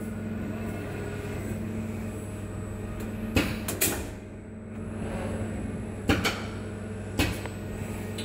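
Automated sorting machine running with a steady hum, broken by sharp mechanical clacks from its pneumatic gripper and slides: two about three and a half seconds in, two more around six seconds, and one a second later.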